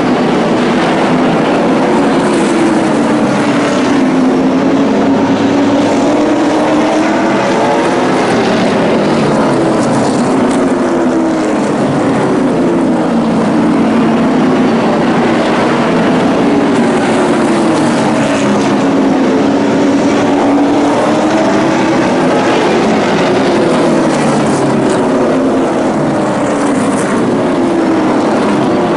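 Engines of several pickup-bodied race trucks running hard on a short oval, their pitch rising and falling again and again as they accelerate and lift through the laps.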